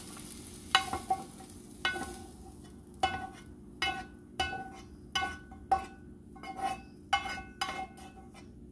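Plastic spatula scraping sautéed onion and red pepper out of a frying pan, with about a dozen short knocks, one every two-thirds of a second or so, each ringing briefly at the same pitch.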